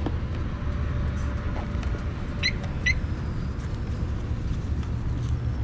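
Harley-Davidson Road King's V-twin engine idling with a steady low rumble. Two short high chirps sound about halfway through.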